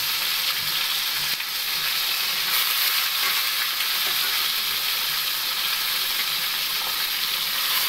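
Squeezed water lily stems sizzling steadily in hot oil in a kadai, with a tempering of mustard seeds and dried red chillies.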